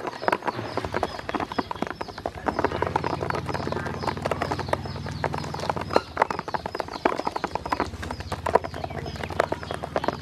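Ducklings pecking feed and water from the bottom of a plastic basin: rapid, irregular taps of their bills on the plastic, with high peeping calls repeating throughout.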